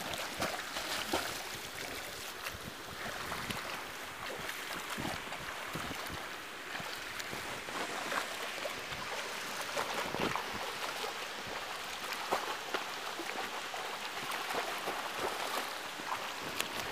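Splashing of a swimmer doing front crawl: irregular small splashes of the arm strokes over a steady wash of water noise.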